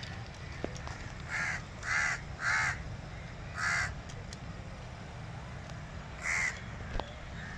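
Crow cawing: four harsh caws in quick succession, then one more a few seconds later, over a steady low background rumble. A single sharp tick comes near the end.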